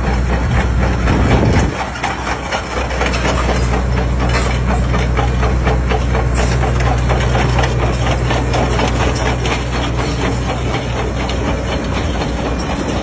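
Large diesel engine of heavy earth-moving machinery running steadily with a deep hum, easing slightly in level about two seconds in.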